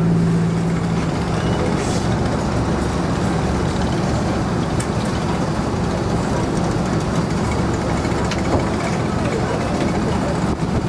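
Motorboat engine running steadily under way, a dense low rumble with water and wind noise; a humming engine tone fades out about a second in.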